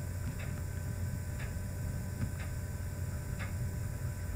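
Stylus tips tapping a touchscreen as dots are drawn: faint, evenly paced ticks about once a second, over a steady electrical hum.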